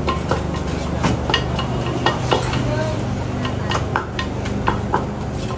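Wooden pestle pounding and mashing a spicy salad in a large wooden mortar, irregular dull knocks about two a second, with a spoon scraping and turning the mix, over a steady low hum.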